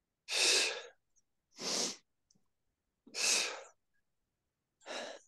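A woman breathing audibly while exercising, four breaths about a second and a half apart.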